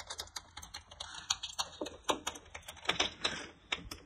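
A bunch of keys clicking and jingling against a metal door's lock as a key is fumbled into the keyhole and tried: a rapid, irregular run of small metallic clicks.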